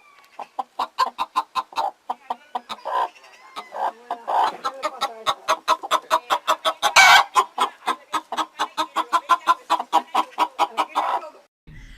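Chicken clucking: a long, rapid run of short clucks, about four or five a second, loudest a little past the middle and stopping just before the end.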